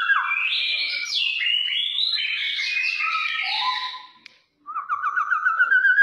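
Kepodang coklat singing loud, fast and varied, in the aggressive style. It opens with a warbled trill that climbs in pitch, runs into a dense string of jumbled notes, breaks off briefly about four seconds in, then starts the rising trill again.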